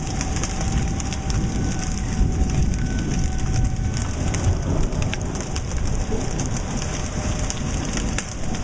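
Large hailstones, up to golf-ball size, pelting the deck and building with a dense, steady clatter of sharp individual hits over a heavy rain hiss.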